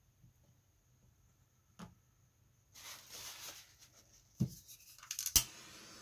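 Hand-handling noises on a work table: a light knock, about a second of rustling and scraping, then a thump and a quick run of clicks ending in a sharp knock.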